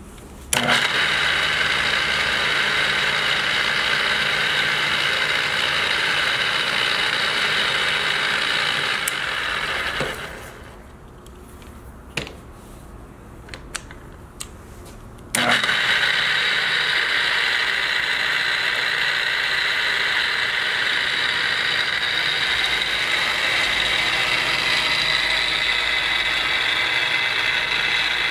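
Strands 16-inch single-phase geared-head drill press switched on, its motor and gearbox running with a steady whine. About ten seconds in it is switched off and runs down, a few clicks follow as the speed levers are moved, and about fifteen seconds in it starts again and runs steadily.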